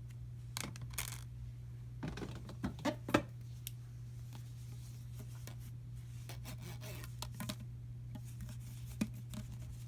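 Packaging and plastic parts being handled during an unboxing: scattered rustles, scrapes and clicks, busiest about two seconds in and again near the middle, over a steady low hum.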